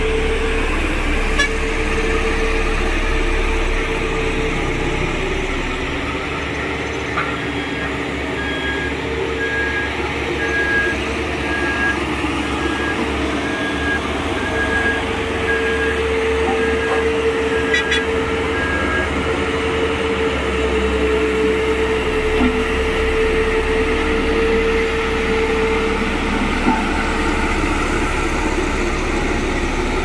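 Diesel engine of a Dynapac single-drum road roller running steadily as the machine drives over the soil. A reversing alarm beeps at an even pace, a little over once a second, for about twelve seconds in the middle.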